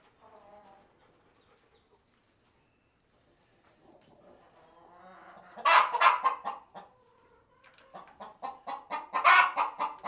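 Domestic hens clucking and squawking: faint at first, a loud outburst about halfway through, then a fast run of repeated clucks near the end.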